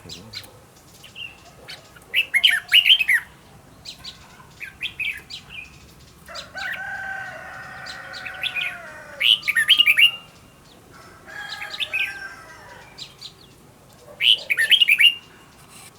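Red-whiskered bulbul singing: short, loud bursts of quick chirping notes about every five to six seconds, with softer calls in between.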